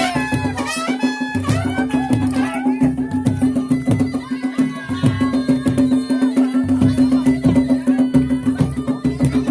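Traditional folk dance music with a drone held at one pitch throughout, a steady drum beat, and a quick ornamented melody line near the start.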